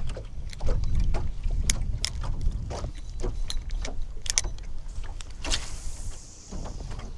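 Small water splashes and knocks at irregular intervals over a low wind rumble on the microphone. A brief hiss comes a little past five seconds in.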